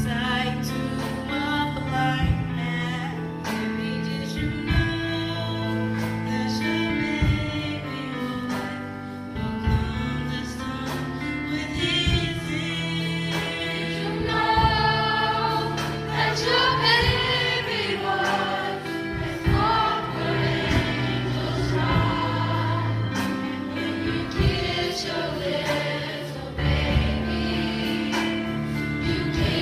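Gospel choir singing with instrumental accompaniment: held low notes underneath and sharp percussive hits throughout.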